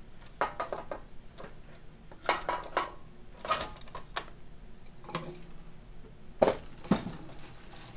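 Small engine's sheet-metal blower housing being worked down into place over the flywheel: a series of metal clanks, rattles and scrapes, with two sharper knocks between about six and seven seconds in.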